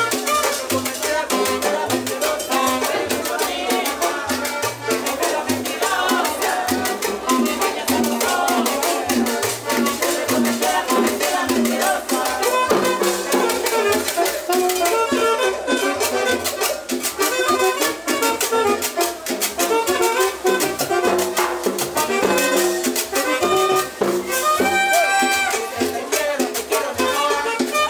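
Live cumbia band playing a dance number, with a conga drum and a horn over a steady percussion rhythm.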